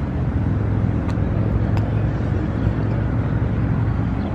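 An idling engine's steady low drone, with two faint ticks about one and two seconds in.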